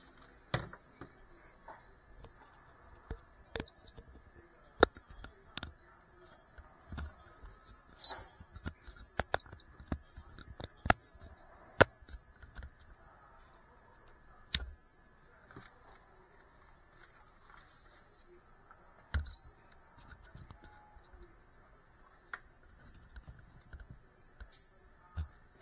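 Handling noise close to the camera's microphone: irregular clicks, taps and knocks of hands working with small hard plastic and metal parts, with a few sharper knocks standing out.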